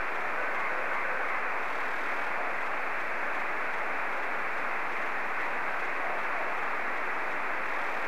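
Steady single-sideband receiver hiss from a Yaesu FT-897 tuned to the FO-29 satellite's 70 cm downlink, fed by a homebrew quadrifilar helix antenna. The hiss has no treble, and no station stands out above the noise.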